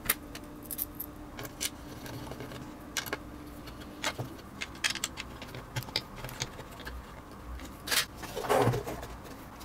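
Small metal bolts clicking and clinking as they are handled and fitted, in scattered light ticks, with a louder rubbing scrape near the end.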